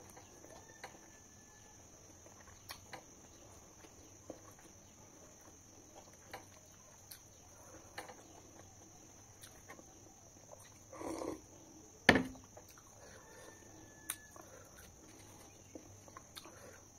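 Quiet eating by hand: soft mouth clicks and lip smacks while chewing rice and fish, scattered every second or two, over a steady high-pitched hiss. About eleven seconds in, a brief louder sound comes, followed at once by a single sharp knock, the loudest thing here.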